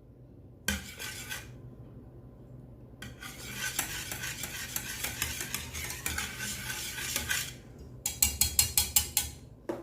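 A utensil stirring and scraping a thickening lemon cream mixture around a saucepan, kept moving so it doesn't stick to the bottom as it cooks. A brief scrape about a second in, steady stirring from about three seconds, then a run of quick strokes, about five a second, near the end.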